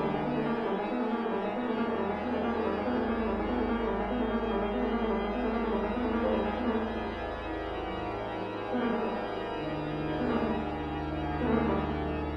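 Organ playing: a quick repeating figure of notes in the middle register over long held low pedal notes that change every few seconds.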